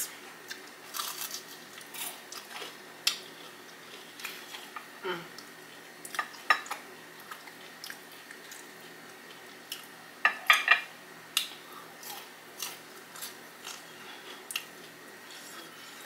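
Close-miked chewing of fried pickles crusted in crushed Flamin' Hot Cheetos: scattered crisp crunches with small clicks, a louder cluster of crunches about ten seconds in.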